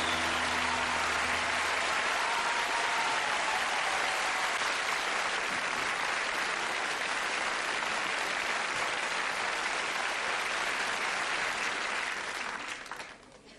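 Studio audience applauding over a band's last held chord, which dies away within the first two seconds; the applause then carries on steadily and fades out near the end.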